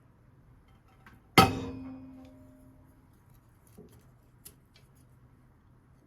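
A single sharp clank of kitchenware being struck or set down, ringing with several tones that die away over about a second and a half, followed by two faint clicks.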